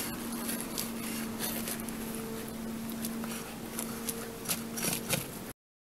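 Rubber-gloved fingers pressing and scraping potting soil around a succulent in a clay pot: scattered small scratches and taps over a steady low hum. All sound stops abruptly near the end.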